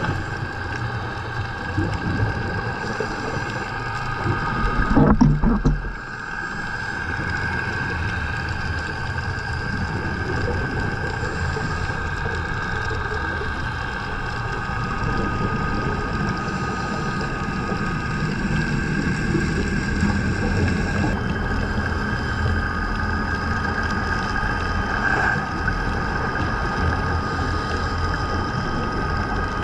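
Underwater ambience picked up by a camera in a dive housing: a steady low hum with several steady high tones over it, and one short, louder rushing burst about five seconds in.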